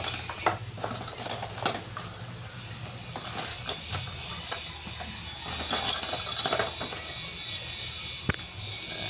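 Light, scattered metallic clicks and clinks of a steel engine timing chain being handled on its sprocket, over a steady low hum.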